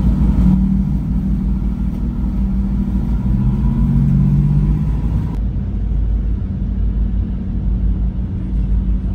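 Boat diesel engines running: a heavy low rumble with a steady hum over it. The sound changes abruptly about five seconds in, and a steady low rumble carries on after that.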